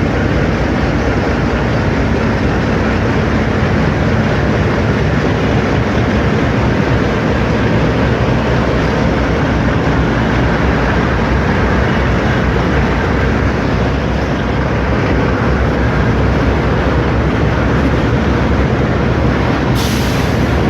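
Train running past at close range, a loud, steady rumble of wheels and running gear that holds for the whole stretch. A short hiss, like air from the brakes, comes near the end.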